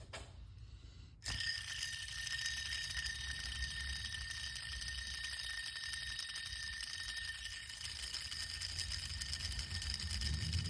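Worn idler pulley bearing spinning with a steady high-pitched ringing whine over a low rumble, the sign of a bad bearing. It starts suddenly about a second in.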